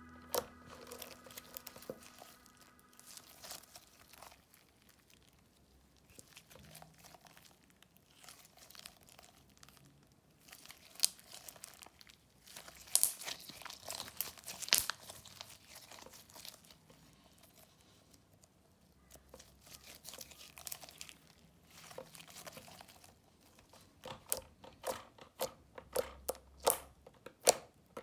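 Hands squishing and folding clear slime, with sticky crackles and sharp pops. The pops come in clusters, with a quick run of them near the end.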